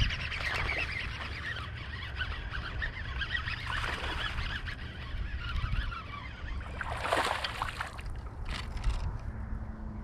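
A hooked bass splashing at the water's surface as it is reeled to the boat, with the strongest splash about seven seconds in, over a steady low wind rumble on the microphone.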